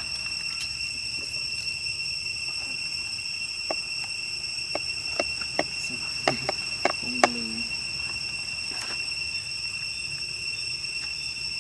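Steady, high-pitched drone of insects in the woodland, unbroken throughout. Over it come a handful of sharp clicks in the middle, the loudest a little past the middle.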